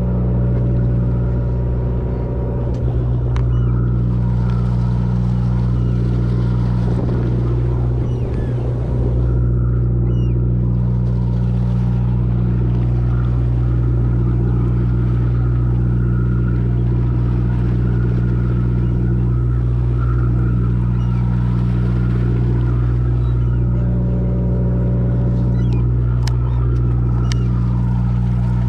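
Fishing boat's engine running steadily, a constant low drone, with a few faint ticks near the end.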